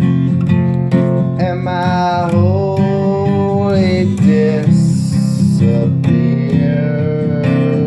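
Music: strummed acoustic guitar with a held, wavering melody line over it.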